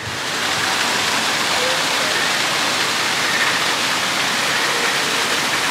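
Steady rush of water from several small man-made waterfalls pouring over rockwork and splashing into a pool.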